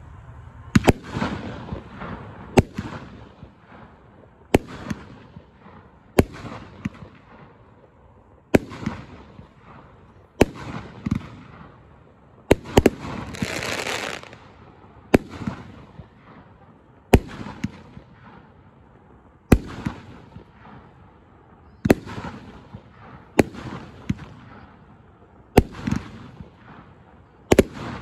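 Guard Dawg consumer firework cake firing its shots one after another, a sharp bang about every two seconds. Around the middle comes a longer stretch of crackle from glittering stars.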